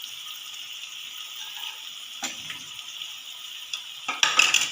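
Onion-tomato masala sizzling in a pan over low heat, with a single knock about two seconds in and a louder burst of a spoon scraping and clattering against the pan near the end as stirring begins.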